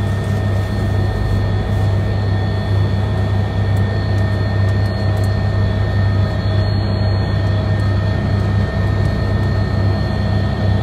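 Steady aircraft engine drone heard inside the cabin: a constant low hum with a few thin, steady whining tones above it.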